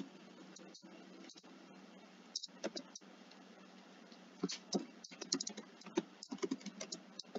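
Computer keyboard being typed on: a few separate key clicks, then a quicker run of keystrokes in the second half.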